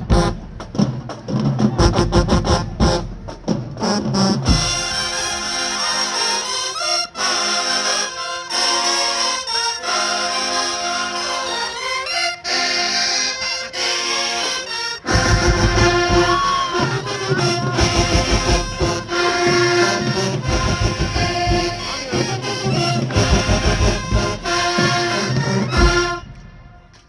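Marching band of brass and drums playing. Drum strikes open it, held brass chords come in after about four seconds, the full band with heavy drums joins after about fifteen seconds, and the music cuts off shortly before the end.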